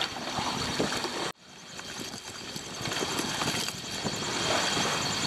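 Water rushing along a sailing yacht's hull under way, with wind on the microphone and splashing as a hooked fish is gaffed alongside. The sound cuts out abruptly just over a second in, then builds back.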